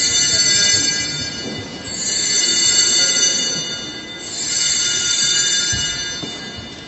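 Altar bells rung in three shakes, each a bright, high, jangling ring of about two seconds, marking the elevation of the host at Mass.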